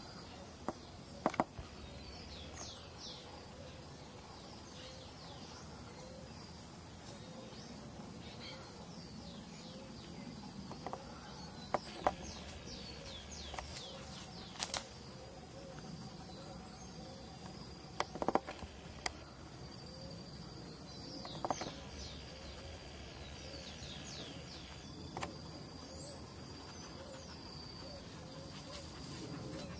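Marmosets giving short, high-pitched, falling chirps in quick runs, over a faint steady high whine. A few sharp clicks sound at irregular intervals.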